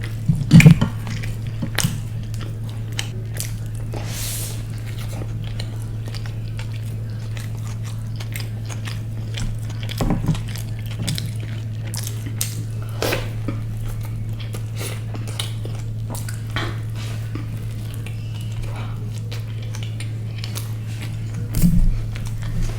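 Close-miked eating: chewing and biting, with frequent small clicks of cutlery on a plate and a few louder knocks. A steady low hum runs underneath.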